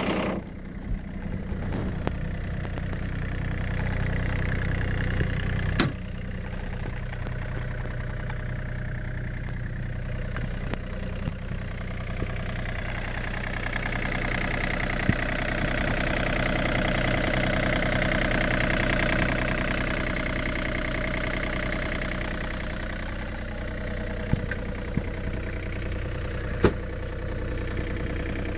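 A John Deere 35D mini excavator's diesel engine idling steadily, with a few sharp clicks.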